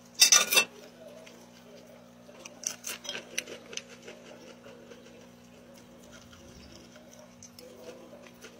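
Close mouth sounds of eating spicy snack food: a loud wet smack as sauce is licked off the fingers just after the start, then a run of small crunchy clicks around three seconds in, over a low steady hum.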